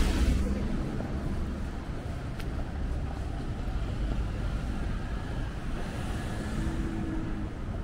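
City street ambience: a steady low rumble of road traffic, with no single event standing out.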